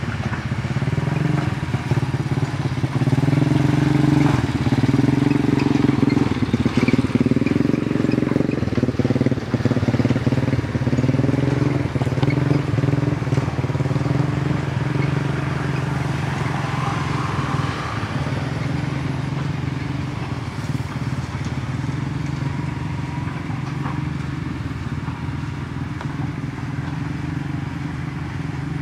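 A small engine running steadily, its pitch wavering a little in the first ten seconds, then a little quieter.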